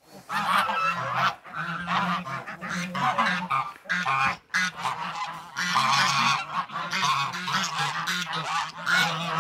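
A flock of domestic Linda geese honking in rapid, overlapping calls, displeased at having been chased off.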